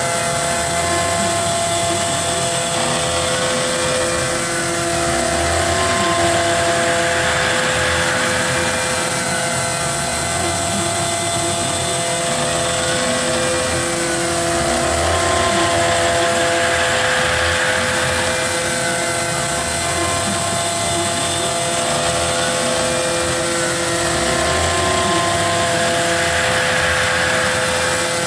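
Desktop CNC router spindle running a single-pitch thread mill that cuts an external thread on aluminium, with a steady whine. The cutting noise swells and fades in a repeating cycle about every four seconds as the tool circles the boss, over a steady hiss.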